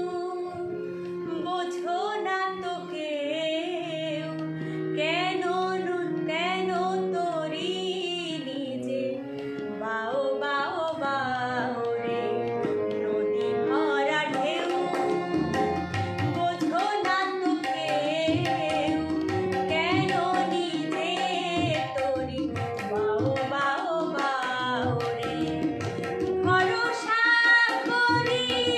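A woman singing a Bengali song solo, her voice sliding and ornamenting each phrase over a steady drone. A drum beat joins about halfway through.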